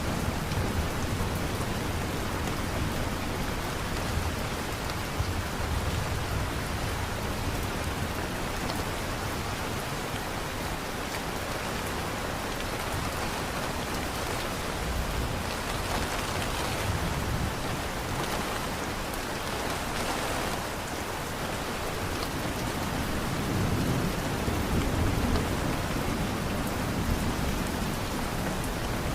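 Steady rain falling, a dense even patter, with a low rumble swelling for a few seconds about three-quarters of the way in.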